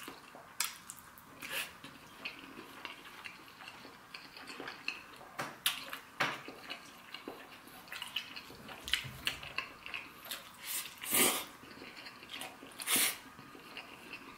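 Close-up eating sounds of spaghetti in tomato sauce: wet chewing and mouth clicks, irregular and small, with a couple of louder wet smacks near the end.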